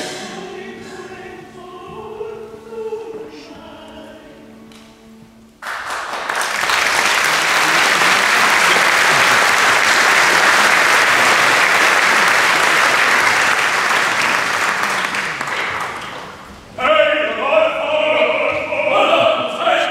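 The orchestra's final soft chord dies away, then about six seconds in an audience breaks into loud applause that lasts about ten seconds. Near the end the applause drops and pitched voices or music take over.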